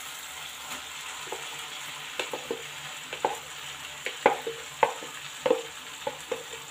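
Tomato-onion masala sizzling gently in oil in a non-stick pan as chopped cauliflower greens are tipped in from a plastic bowl. From about two seconds in there is a run of short sharp knocks, about a dozen, loudest in the middle of the run.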